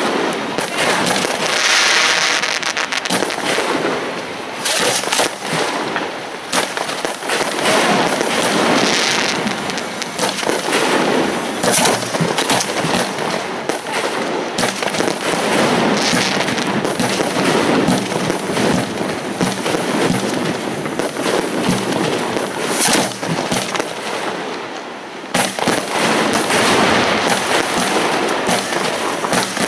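Hand-fired fireworks mortars launching from racks of tubes in quick succession: a dense, near-continuous run of loud bangs, with a short lull just before the last few seconds.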